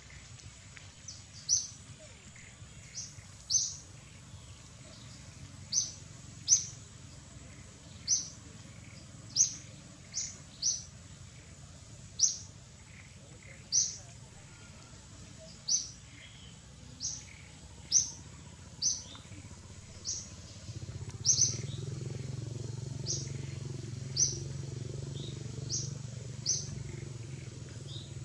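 A bird calls with short, sharp, high chirps, repeated about once a second. A low steady hum sits underneath and grows louder a little past two-thirds of the way through.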